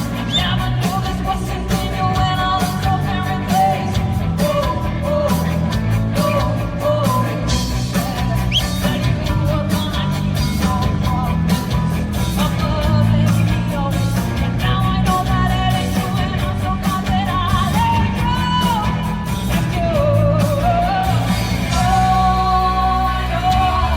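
Rock band playing live in a large empty arena: a woman singing over electric guitar, bass and drums, with a heavy bass line and a steady drum beat. It is heard from far back in the hall, so it sounds distant and not very clear.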